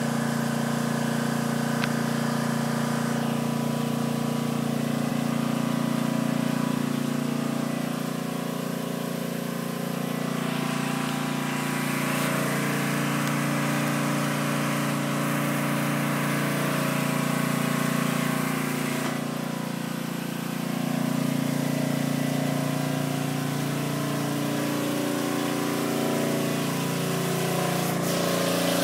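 A motor engine running steadily, its pitch wavering slightly near the end.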